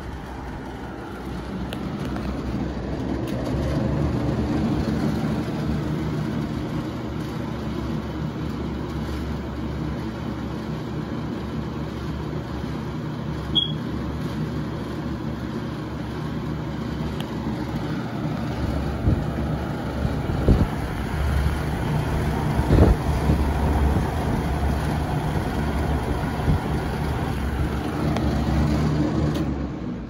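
Small box fan running, with a steady motor hum and the rush of air through its blades, and a rattle from its grille. A few low thumps come about twenty seconds in, and the sound drops off near the end.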